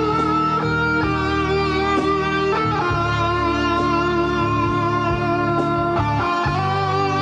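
Guitar-led pop music, with held chords that change every second or two.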